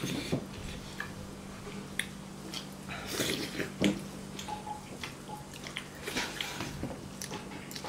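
Close-miked eating by hand: chewing, with scattered short wet mouth clicks and smacks as soft dhindo and yak meat are pinched from the plate and eaten. A faint steady low hum runs underneath.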